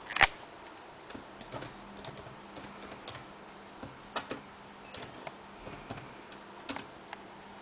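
Computer keyboard keys pressed one at a time at a slow, uneven pace as a password is typed in, each press a short click.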